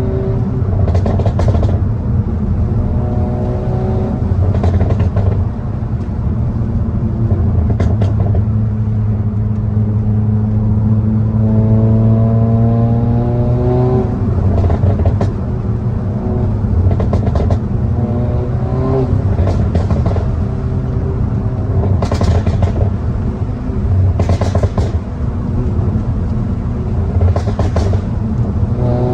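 Tuned SEAT Cupra's turbocharged engine through a downpipe and resonator-deleted exhaust, accelerating hard several times with the pitch climbing and dropping back between gears. Short sharp noises come now and then.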